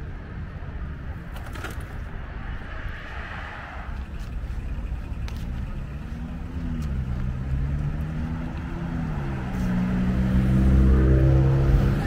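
Street traffic: a steady rumble of passing cars. From about six seconds in, a motor vehicle's engine grows louder, its pitch rising and falling as it changes speed, and is loudest near the end.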